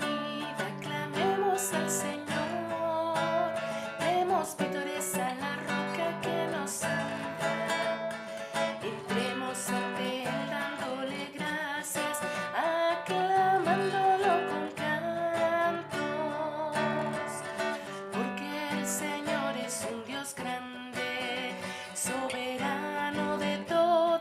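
Acoustic guitar strummed in a steady rhythm, with a woman singing over the chords at times.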